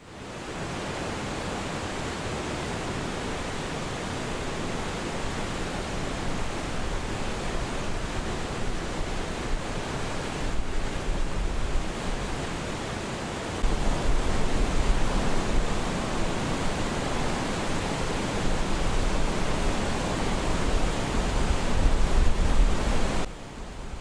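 Steady rushing noise with low rumbling gusts underneath. It grows louder about halfway through and drops away sharply just before the end.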